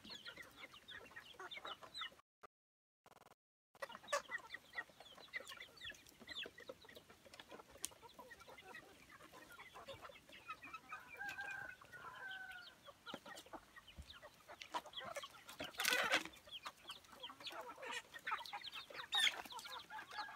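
A flock of young chickens clucking and peeping while they feed, with a longer drawn-out call in the middle. The sound cuts out completely for over a second about two seconds in.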